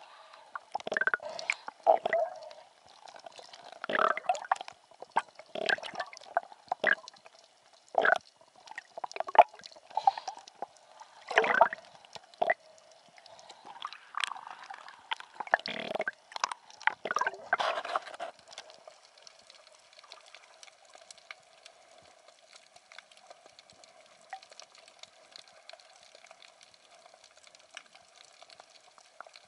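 Sea water gurgling and sloshing around a spearfisher's camera, in uneven bursts about once or twice a second, then dying down about two-thirds of the way in to a faint steady hiss.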